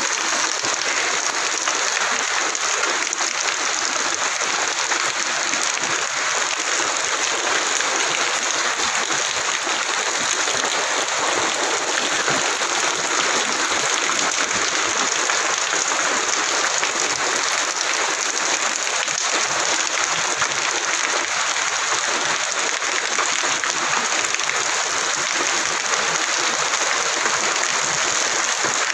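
Heavy rain pouring onto a lake's surface and the paved shore, a steady, even hiss.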